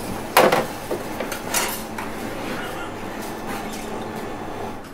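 Glassware and crockery clinking: one sharp, loud clink about half a second in, a lighter clink about a second later, then a few faint ticks over steady low room noise.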